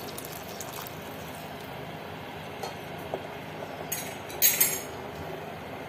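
Hot water poured into a stainless steel pot of simmering vegetables, with a steady low hiss underneath. About four seconds in come a couple of sharp metallic clinks of steel on steel.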